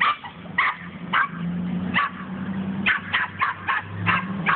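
Dog barking frantically and repeatedly, about ten sharp barks, some in quick runs, over a steady low hum.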